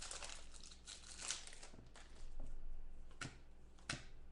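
Trading-card pack wrapper crinkling and tearing as a pack is opened, fading after about a second and a half, then a few short sharp clicks near the end.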